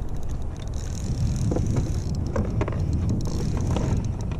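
Wind rumbling on the microphone, with spells of quick clicking and a high whirr from a spinning reel being cranked to bring in line, about a second in and again past three seconds.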